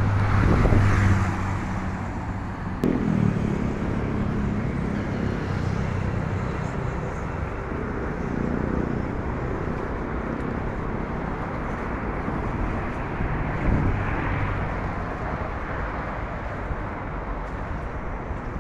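Steady road-traffic noise, with several vehicles passing one after another.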